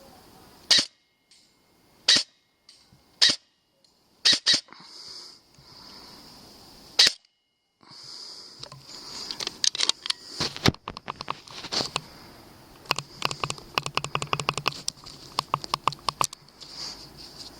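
Airsoft gun firing single shots, six sharp cracks a second or so apart over the first seven seconds, then a long run of rapid shots and clicks for about eight seconds.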